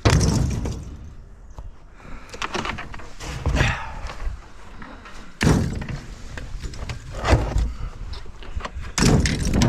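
Heavy thuds and knocks of scrap electric motors being handled and set into a metal bucket, about five loud irregular impacts with rattling between them.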